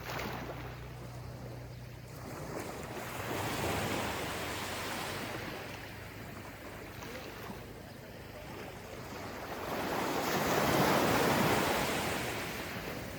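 Gentle ocean waves washing onto a beach. One wave swells and breaks about four seconds in, and a louder one comes near the end.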